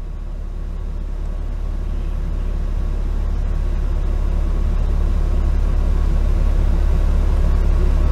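Steady low rumble of road traffic passing close by, growing slowly louder.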